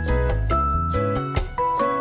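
Upbeat background music: plucked-string melody over a bass line.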